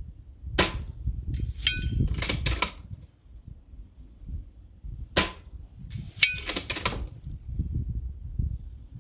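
Two shots from a BRK Ghost sub-12 ft-lb PCP air rifle, about half a second and five seconds in, each a sharp crack followed about a second later by a short run of metallic clicks as the action is cycled for the next pellet. Wind rumbles on the microphone throughout.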